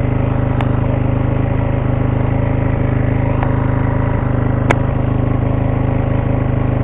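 Enduro motorcycle engine idling steadily, with a couple of short sharp clicks, the loudest about three-quarters of the way through.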